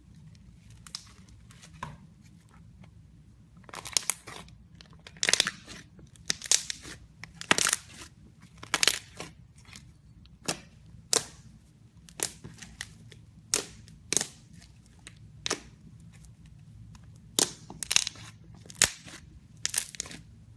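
Slime being handled, giving a series of short crackling crunches, a few faint ones at first, then louder ones about once a second from about four seconds in.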